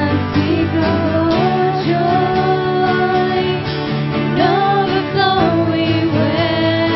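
A church praise band playing a worship song live: strummed acoustic guitar and sustained accompaniment under a sung melody.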